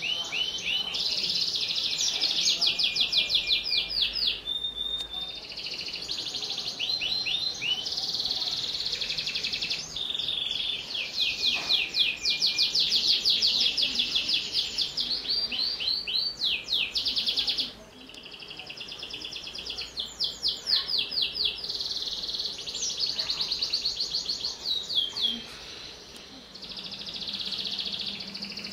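White canary singing vigorously in long runs of fast trills, rolls and quick rising and falling notes, with a brief break about two-thirds of the way through.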